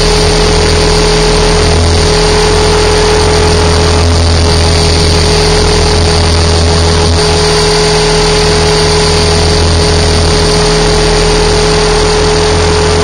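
Electric RC helicopter (Align T-Rex 550) in flight, heard from a camera mounted on the airframe: a steady motor and gear whine over the low buzz of the spinning rotor, the low part swelling and easing slightly as it manoeuvres.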